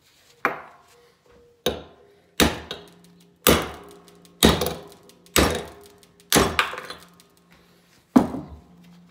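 Hammer blows on a steel punch, driving a T60 Torx bit out of its 1/2-inch drive socket clamped in a vise: eight sharp metallic strikes about once a second, the last after a longer pause, each ringing on briefly.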